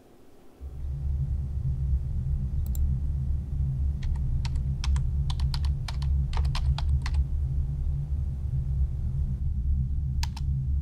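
Computer keyboard typing: a single keystroke, then a quick run of keystrokes over about three seconds, and one more key tap near the end. Under it all, a loud low rumbling drone sets in under a second in and holds steady.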